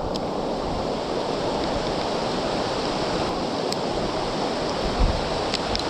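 Mountain stream rushing, a steady hiss of flowing water, with a short low thump about five seconds in and a few faint clicks.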